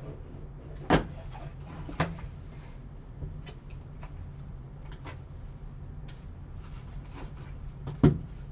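Packaging of a trading card box being handled and opened by hand: a few sharp clicks and knocks, the loudest about a second in, another at two seconds and one near the end, with lighter ticks between, over a steady low hum.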